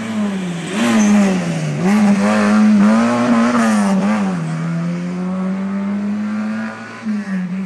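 Rally car engine at full throttle passing close by, its pitch dropping and climbing again several times as the driver lifts, shifts and accelerates. It is loudest for a few seconds early in the pass, then settles to a steadier, lower drone that dips once near the end.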